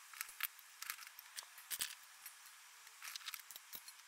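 Faint clicks and crackles from kindling and sticks in a stainless steel colander as a small wood fire is lit, coming in short clusters.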